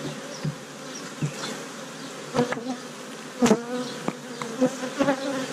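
Honeybees buzzing around an opened hive during a frame inspection, individual bees flying close past and swelling in and out, with a few short knocks.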